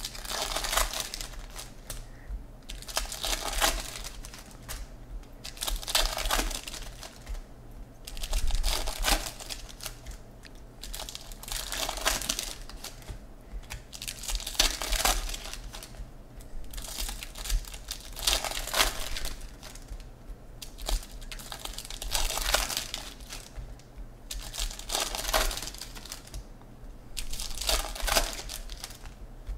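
Baseball card pack wrappers crinkling and tearing as packs are opened one after another, with the cards handled between the hands. The rustling comes in repeated bursts every two to three seconds.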